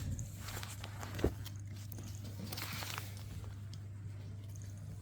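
Cat biting and chewing at catnip: scattered crunching, rustling and clicks, with one sharp knock about a second in, over a steady low hum.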